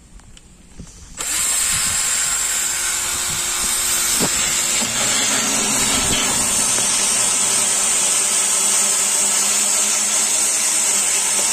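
Cordless drill driving a 45 mm hole saw through PVC pipe: the motor starts about a second in and runs steadily under load as the saw teeth cut the plastic.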